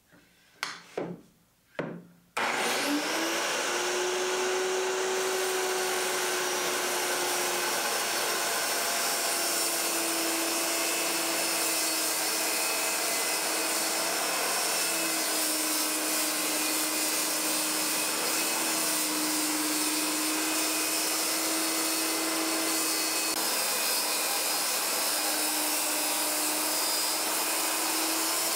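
Corded circular saw ripping a sheet of plywood: a few short knocks, then about two seconds in the saw starts with a rising whine and runs steadily through the cut, its pitch dipping slightly a few times.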